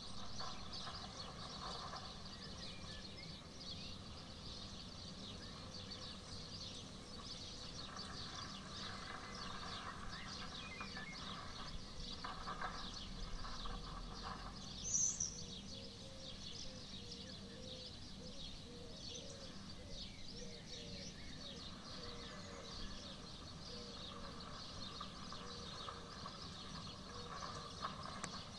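Songbirds chirping and twittering in a dawn chorus, many short high notes all the way through. One call stands out louder and higher about halfway in. A steady low hum runs underneath.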